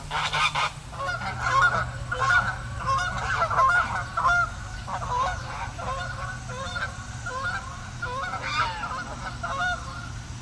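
A flock of geese honking and calling, many short overlapping calls packed densely in the first few seconds and thinning a little later, over a low steady hum.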